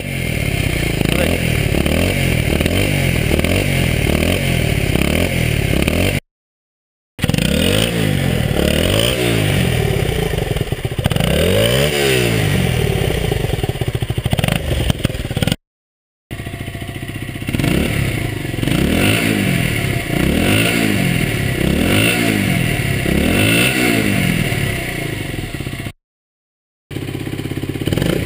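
Blata 125 motorcycle engine revved again and again, the revs climbing and dropping in quick blips over a steady run, in a sound check of its exhaust. Three short silent breaks cut between takes.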